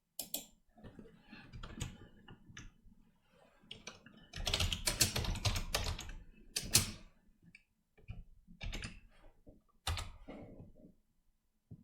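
Typing on a computer keyboard: irregular key clicks, with a fast run of keystrokes about four seconds in and a few single strokes near the end.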